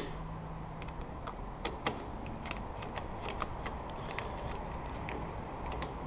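Hand screwdriver turning the mounting screws of a sliding patio door handle: faint, scattered small clicks and ticks over a steady low background noise.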